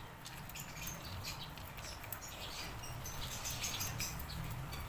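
Light, irregular clicks and rattles of a plastic phone-holder clamp being handled and fitted onto a stand, with faint short high chirps among them.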